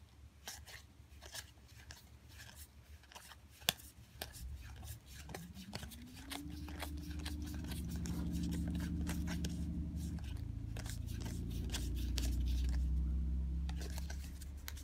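Stiff trading cards being flicked and slid through by hand, making many light clicks and snaps. From about five seconds in, a low hum of unknown source rises in pitch, then holds steady and becomes the loudest sound, fading near the end.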